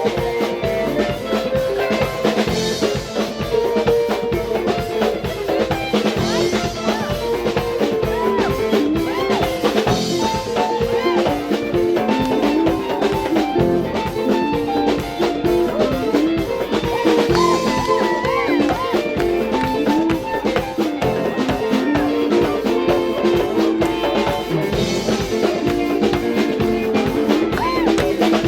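Band music with a drum kit keeping a steady beat under moving melodic lines.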